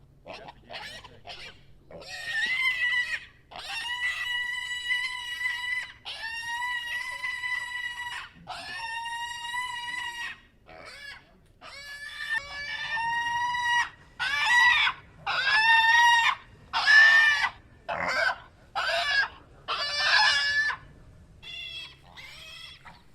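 Piglets squealing: several long, drawn-out high squeals, then a faster run of shorter, louder squeals about one a second.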